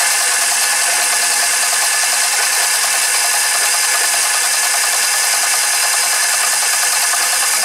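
Tractor engine running loud and steady with a fast mechanical rattle. It has a blown head gasket letting coolant into the oil pan, and the owner is listening for a knock from it.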